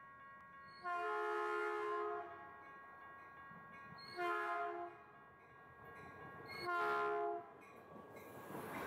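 Commuter train horn sounding three blasts as it approaches a grade crossing: a long one about a second in, a short one midway, and another near the end. Under it a steady ringing of the crossing warning bell, and at the very end the rush of the bilevel cars starting to pass.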